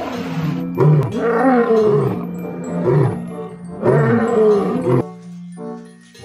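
Male lion roaring: a run of deep, hoarse roars about a second apart, stopping about five seconds in.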